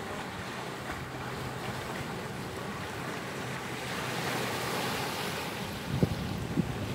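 Ocean surf washing through a gap in the rocks into a shallow tidal pool, a steady rush of foaming water that swells about four seconds in as a wave surges through. Wind buffets the microphone, with a couple of brief low thumps near the end.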